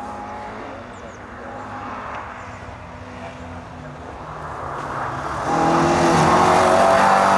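Ford Escort Mk1 rally car's engine at high revs, growing louder as the car approaches, then running loud and close from about five and a half seconds in.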